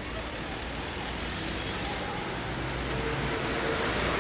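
Street noise as a large group of cyclists rides up: a steady wash of noise that grows louder, with faint voices among it.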